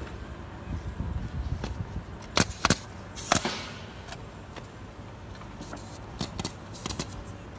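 Pneumatic roofing nailer firing into asphalt shingles: sharp single shots, two close together about two and a half seconds in, a louder one just after, then a quick cluster of four near the end.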